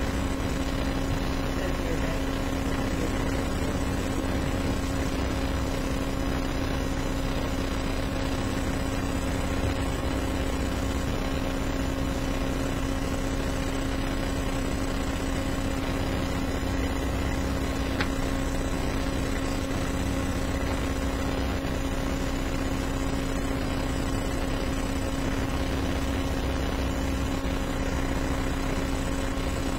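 Steady background hum at a few fixed pitches over an even hiss, with no speech: room tone, with one faint click about eighteen seconds in.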